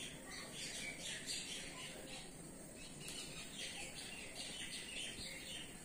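Birds chirping: many short, high chirps at an irregular pace, over faint steady background noise.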